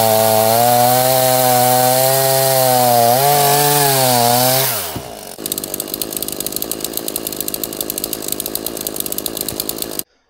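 Titan TTL759CHN two-stroke petrol chainsaw running steadily. A little past three seconds it rises slightly in pitch, then it winds down and cuts out about halfway through. After that there is a quieter, fast, even clicking.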